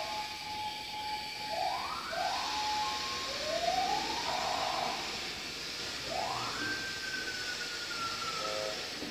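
Electronic siren tones changing pattern: steady tones, then two quick rising whoops, a slower rise, and finally a rise that holds high and slowly falls. A steady hiss runs under them.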